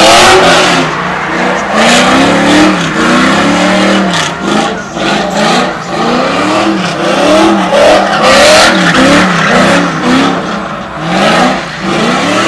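Car engine revved hard up and down over and over, its pitch climbing and dropping roughly once a second, over a steady rushing hiss.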